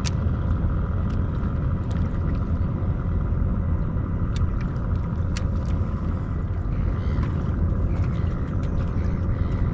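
Steady low rumble of a small boat on the river, with a faint steady electric whine from the trolling motor holding position on spot-lock and a few light ticks scattered through.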